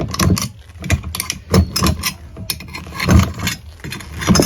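Irregular knocks, clicks and metallic rattles of a bi-metal hole saw and its mandrel being handled as the cut wood plug is worked out of the saw.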